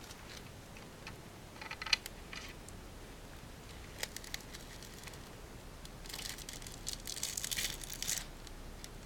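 Velcro (hook-and-loop fastener) being pulled apart by a pet in rasping rips: a short rip about two seconds in, a couple of brief ones around four seconds, and a longer rip from about six to eight seconds.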